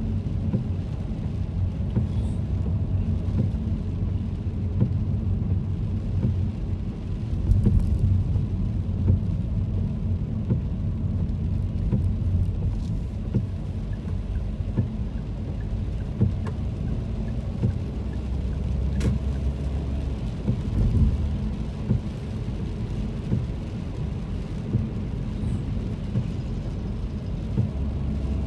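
Car cabin noise while driving in rain: a steady low rumble of engine and tyres on the wet road, with rain on the car and occasional faint ticks.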